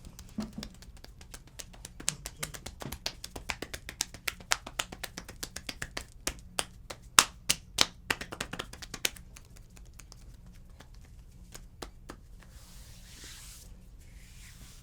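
Rapid, irregular hand strikes on skin, several a second, as in percussive tapotement massage strokes; they stop about nine seconds in, leaving only a faint rustle of hands on the body.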